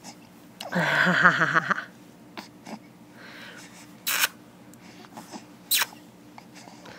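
A voice makes a wavering, warbling sound for about a second near the start. Later come two sharp clicks, a second and a half apart.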